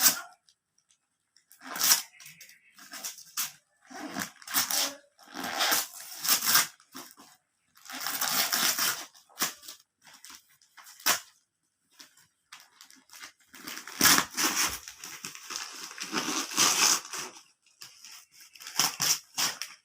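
Gift wrapping paper being torn open and crumpled by hand in irregular rustling bursts, with a sharp crackle at the very start.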